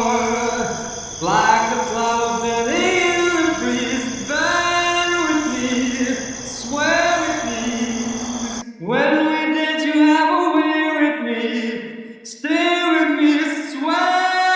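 A man's voice singing a slow pop song without instruments, from an isolated vocal track. Under it are a steady high cricket chirring and a low ambient hiss, which cut off abruptly about two-thirds of the way through, leaving the voice alone.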